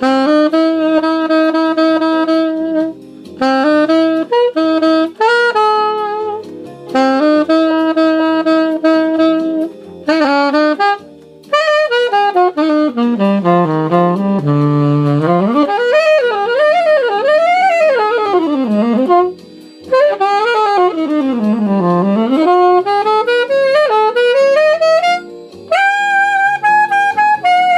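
1930 Martin Typewriter alto saxophone, gold plated, played alone: several held melody notes, then quick runs sweeping down to a low note and back up through wide arpeggios, ending on a held high note.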